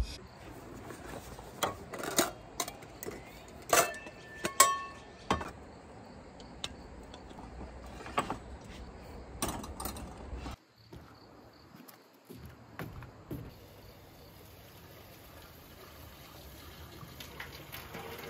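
Metal camping gear being handled on a wooden table: a portable butane stove and its wire grill rack set in place, with sharp knocks and clatters, two of them ringing briefly like struck metal. After a sudden drop about ten seconds in, a faint steady hiss of tap water running into a pot.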